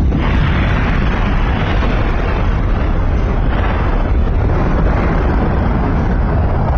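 Explosion-and-fire sound effect: a loud, continuous rumbling roar that swells and eases every second or two.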